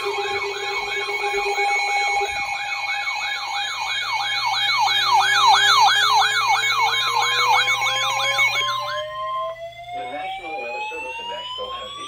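Several NOAA weather alert radios sounding their alarms together for a warning: a fast electronic warble of about three cycles a second over the steady weather-radio warning tone and other steady beeps. The alarms cut off together about nine seconds in. A slowly rising wail climbs from about halfway through to the end, and the broadcast voice begins under it.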